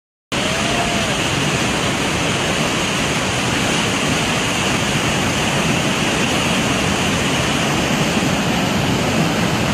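Fast-flowing floodwater rushing, a steady dense wash of noise that starts suddenly after a moment of silence.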